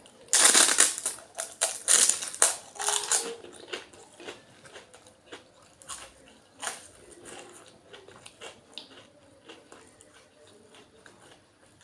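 Close-up eating sounds: a person bites into and crunches crisp, hollow puchka (pani puri) shells with loud, sharp crunches for about the first three seconds, then chews more quietly with scattered small clicks.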